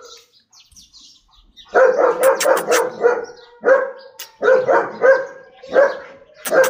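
Dog barking repeatedly, starting about two seconds in, in quick runs of two or three barks with short gaps between.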